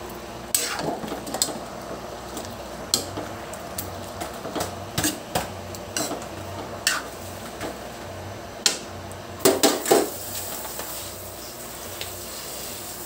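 Metal spatula scraping and knocking against a metal wok as chunks of chicken and pork adobo are stirred: irregular clacks, with a quick run of several knocks about ten seconds in. Then the stirring stops, leaving a steady low hum.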